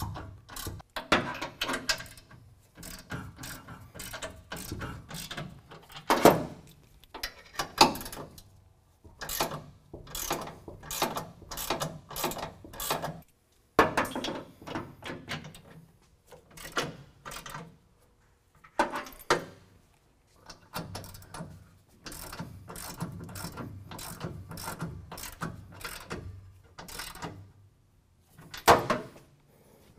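Hand ratchet clicking in runs of quick strokes while drawing in the gooseneck hitch bracket's steel side bolts, with short pauses between runs and a few louder knocks.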